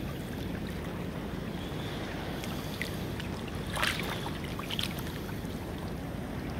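Wind rumbling on the microphone over shallow sea water, with a few short water splashes from wading through waist-deep water about three to five seconds in.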